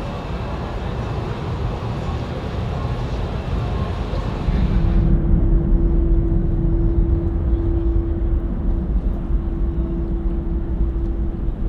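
Jet aircraft engines running, heard as a steady noisy rush. About five seconds in the sound changes abruptly to a louder low rumble with a steady hum and no high end.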